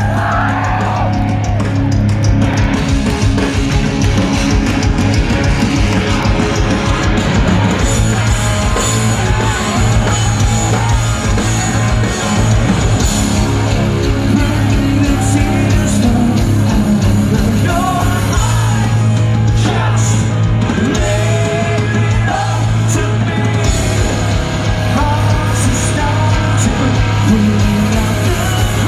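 Live rock band playing loud: electric guitars, bass guitar and drums, with a male lead vocalist singing into the microphone.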